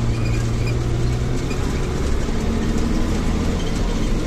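Bus engine running steadily with a low hum, with faint clicks and rattles over it.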